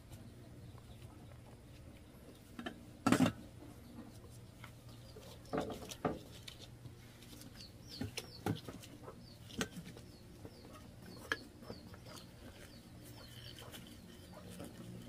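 A few sharp knocks and clacks, the loudest about three seconds in, over a steady low hum. Faint, short, high bird chirps repeat from about five seconds in.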